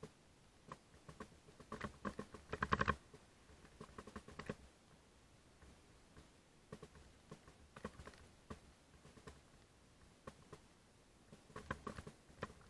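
Mountain bike riding down a loose gravel and rock singletrack: irregular clicks and rattles of the bike and loose stones, thickest about two to three seconds in and again near the end.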